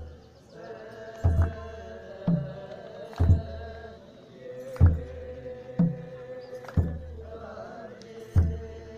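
A group of men chanting in long held notes, with deep kebero drum beats in groups of three about a second apart, separated by short pauses: Ethiopian Orthodox liturgical chant with drum.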